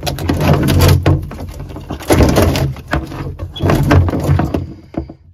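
Dishwasher hoses, a ribbed plastic drain hose and a braided steel water line, dragged through a hole in a cabinet wall, rasping and rubbing against the edge in about three loud pulls.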